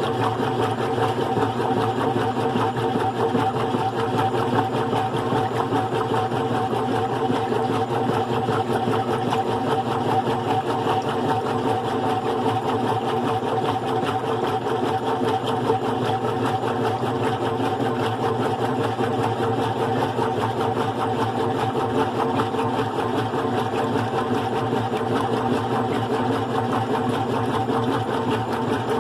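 GE Profile top-load washing machine running with a load of bedding, driven by the motor and agitator from a one-speed GE Profile: a steady motor hum with several fixed tones, unbroken throughout.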